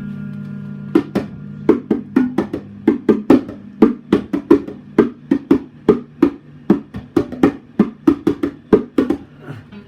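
Drum beaten in a quick, uneven run of sharp strikes, starting about a second in and tailing off near the end, over a guitar chord ringing out and fading.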